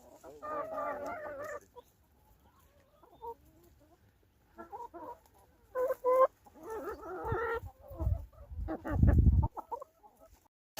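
Chickens clucking, a run of short calls with gaps between them. Low thumping rumbles come in near the end, louder than the calls.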